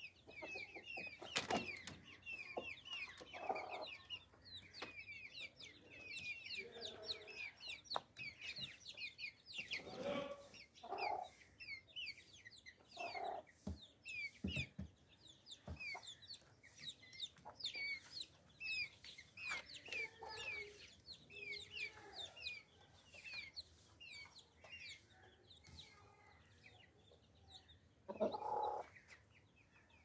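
Aseel chickens clucking now and then, the loudest cluck near the end. Quick high chirps run constantly behind them, with a few sharp taps.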